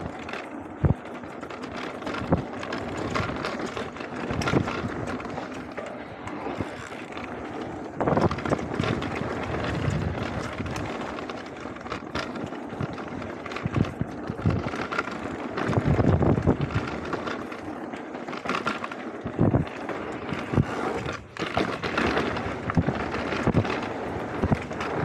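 Mountain bike rolling fast down a rough dirt and gravel trail: steady tyre noise over loose stones, with frequent knocks and rattles from the bike hitting bumps, heaviest about 8 and 16 seconds in.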